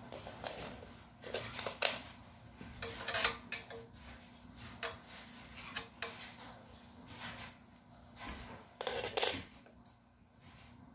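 Short metal clicks and clinks of a small Allen key turning a screw in a Hover-1 Buggy's steel frame, with the frame's metal parts knocking together as they are handled; the loudest clinks come near the end.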